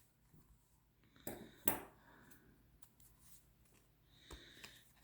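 Quiet handling of a tarot deck and its packaging: two light taps about a second and a half in, and a few faint soft ticks near the end.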